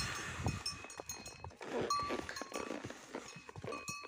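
A metal livestock bell clanking irregularly as the cattle and horse walk, its ringing at the same few pitches each time, over the thud of hooves on the dirt track. About two seconds in there is a short, louder low sound.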